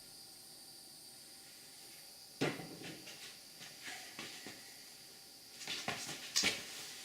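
Copper pipe and fittings being handled: a sudden knock about two and a half seconds in, a few light clicks, then a run of clatter and scraping near the end.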